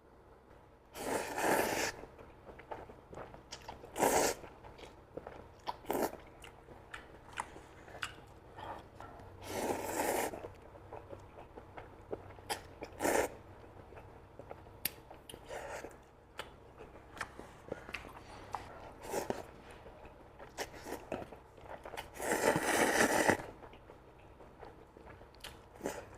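Close-up eating sounds: chewing and biting, with a few longer noisy slurps of about a second each and many short sharp clicks in between.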